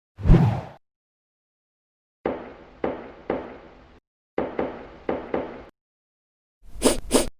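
Knocking: a heavy thud at the start, then three sharp knocks about half a second apart, a short pause, and a quicker run of knocks. Two brighter, sharper hits come near the end.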